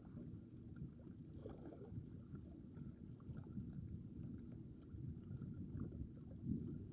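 Low, uneven rumble of wind on an action camera's built-in microphone, mixed with small waves washing against rocks. One louder bump near the end.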